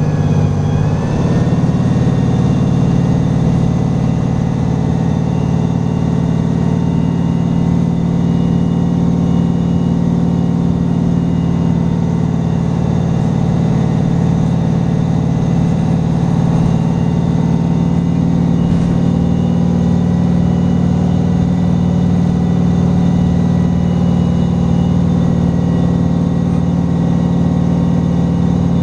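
VDL SB200 single-deck bus heard from inside the saloon, its diesel engine pulling hard at speed. The engine note rises over the first two seconds, then holds steady under road noise.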